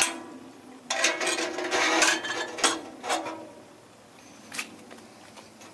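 Sheet-steel smokestack being fitted onto the steel barrel of a Char-Griller Smokin' Champ smoker: metal scraping and clanking with the thin steel ringing for about a second, then a few sharp clicks and fainter taps of small hardware.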